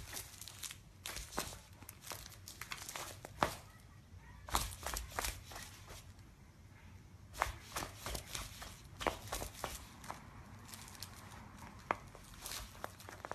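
A cat grappling with a stuffed fabric toy on a wooden floor: faint, irregular rustling and scratchy clicks from its paws and claws on the fabric and floor.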